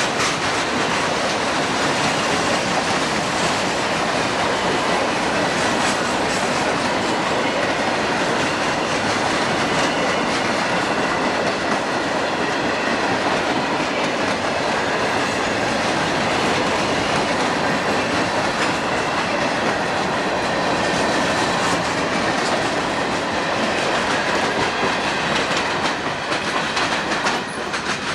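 Railroad cars rolling steadily past, wheels clicking over the rail joints. The rolling noise eases off a little near the end.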